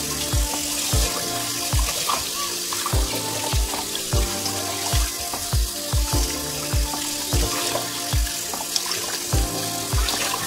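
Tap water running into a stainless steel bowl in a sink as hands rinse a whole raw chicken in it. Background music with a steady bass beat, about two beats a second, plays over it and is the loudest part.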